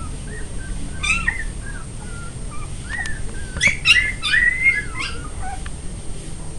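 Newborn puppies whimpering and squealing in a string of short, high-pitched cries, thickest in the middle, with one longer cry.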